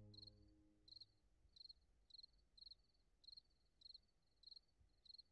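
Faint cricket chirping: short high trills repeating at a steady pace of about two a second. Background music dies away in the first second.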